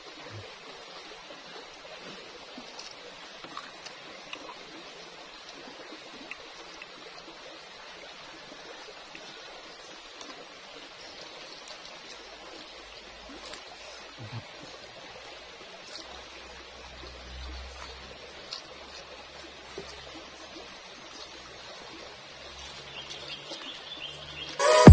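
Shallow rocky creek flowing: a steady, even rush of water, with a few faint clicks.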